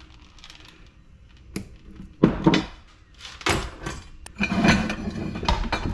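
Metal parts from a dismantled LED light fixture knocking and clattering as they are handled, in several separate bursts with a sharp click between them.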